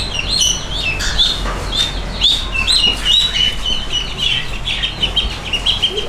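Ducklings peeping: a continuous run of short, high chirps.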